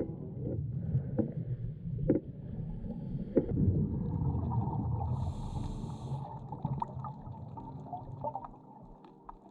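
Water moving against a kayak's hull, with a low rumbling wash and several sharp knocks on the hull in the first few seconds.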